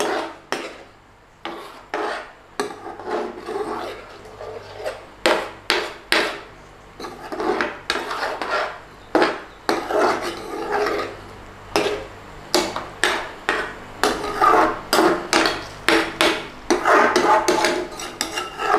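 Spoon scraping around a pan and knocking against it while stirring thick curry sauce, with frequent irregular sharp knocks.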